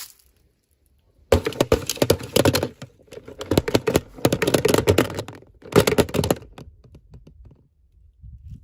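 Rapid crackling and clicking of toy packaging being handled, in two spells of a few seconds, the second one short.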